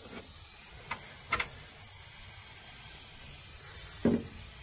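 Rust treatment being sprayed from a can in a steady hiss, with a few short knocks during the spraying.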